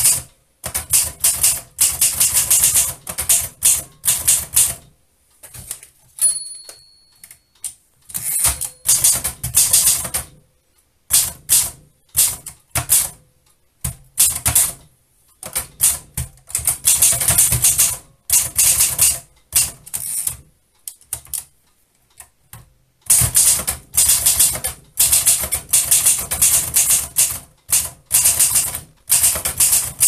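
Typing on a 1936 Triumph Norm portable typewriter: fast runs of typebar strikes clacking against the platen, broken by short pauses. The margin bell rings once about six seconds in.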